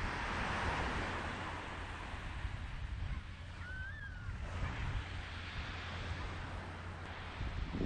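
Surf breaking on the beach with wind buffeting the microphone, a steady rumbling wash. About halfway through, a single short bird call that rises and then falls in pitch.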